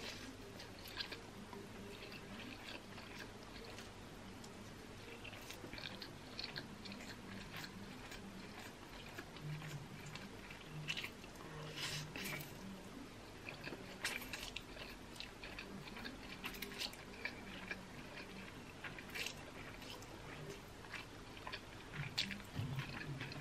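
Mouth sounds of someone eating yakisoba stir-fried noodles: slurping strands in and chewing, with many short wet smacks and clicks.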